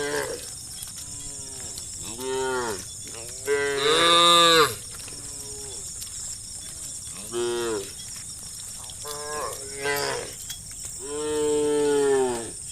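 Cattle mooing: about six separate calls from the herd, each rising then falling in pitch. The loudest comes about four seconds in and a long one near the end.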